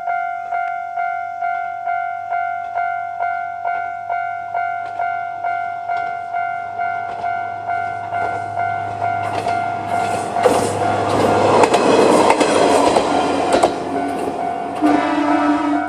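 Level crossing's electronic warning bell ringing in rapid repeating dings, about two and a half a second, as a Kanto Railway KiHa 5000 series diesel railcar approaches and passes. The railcar's engine hum and the wheel rumble and clicks over the rails swell to their loudest in the middle, with a brief lower tone near the end.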